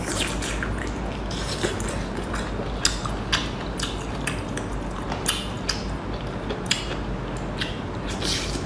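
Shellfish shells cracking and snapping as they are pulled apart by hand and bitten, with eating noises close to the microphone, in a run of sharp, irregular clicks over a low steady hum.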